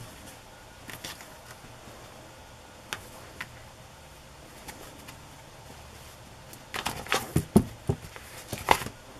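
Handling sounds on a cutting mat as a cotton fabric strip is folded and a hardback book cover is lifted and turned over: a few scattered soft taps, then a cluster of louder knocks and rustles about seven to nine seconds in.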